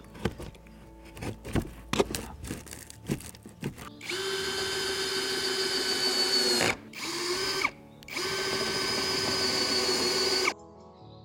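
A few scattered clicks and scrapes of the corrugated roofing sheet being handled. Then a cordless drill driver runs for about six seconds, driving a screw through the corrugated roofing sheet. It stops briefly twice, and its motor note sags just before the first stop as the screw seats, then cuts off near the end.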